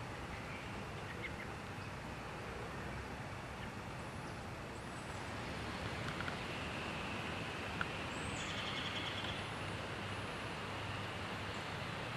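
Outdoor ambience: a steady rushing noise with birds calling, including a brief trill about eight to nine seconds in.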